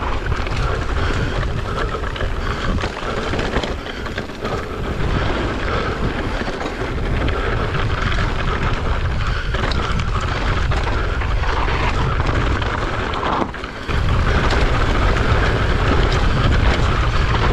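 Wind rushing over an action camera's microphone, with the noise of mountain bike tyres rolling over a dirt trail on a descent. The rushing gets louder about fourteen seconds in.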